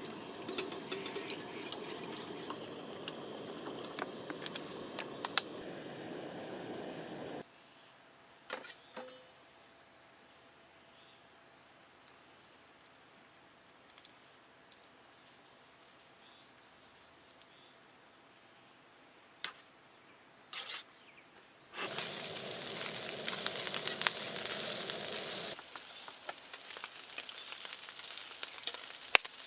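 Food sizzling and crackling in a hot frying pan, broken about seven seconds in by a quieter stretch of about fourteen seconds where a steady high-pitched insect drone is heard. The sizzling returns loudly a little past twenty seconds, then settles to a lighter crackle.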